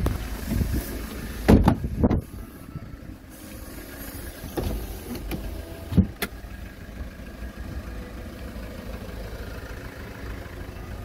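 Car doors being handled: heavy thuds of a door shutting about a second and a half in, then a single sharp click of a door latch about six seconds in as a rear door is opened.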